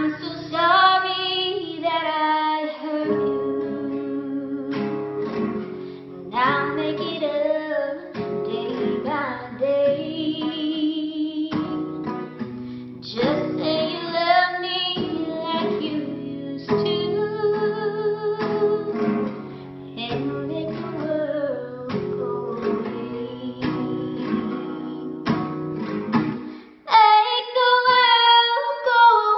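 A woman singing a slow country song, accompanied by a strummed nylon-string classical guitar. The voice pauses briefly near the end, then comes back stronger.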